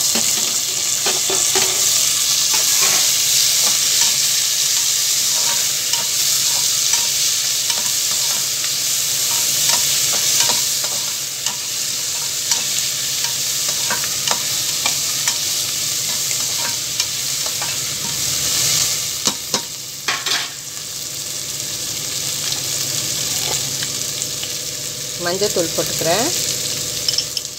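Onion, garlic and tomato pieces sizzling in hot oil in an aluminium pressure cooker, with a steel slotted ladle scraping and clinking against the pan now and then as they are stirred. The sizzle is strongest at first and eases a little after about ten seconds.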